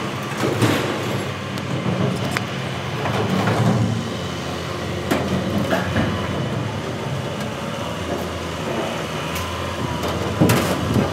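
An engine running steadily, with scrap metal clanking and knocking every few seconds, the loudest clank near the end.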